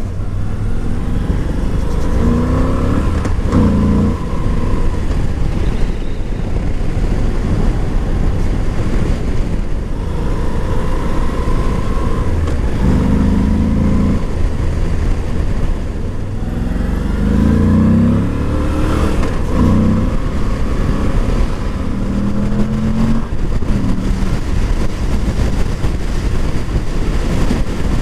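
Moto Guzzi V85 TT's air-cooled 853 cc transverse V-twin under way, accelerating several times. Its pitch climbs and then steps down at each gear change.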